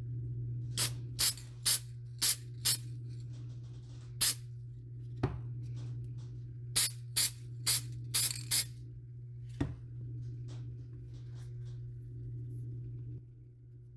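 Silicone mould halves being handled, closed together and set down on a wooden board: a series of short, sharp clicks and taps in quick clusters, with a couple of duller knocks. Under them runs a steady low hum that drops away near the end.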